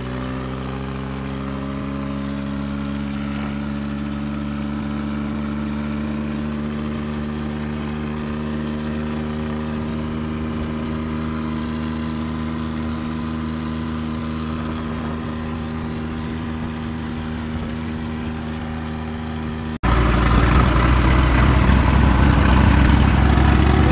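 New Holland 3630 tractor's three-cylinder diesel engine running steadily under way, its pitch rising a little in the first couple of seconds and then holding. About twenty seconds in, the sound cuts to louder, noisier engine and road noise.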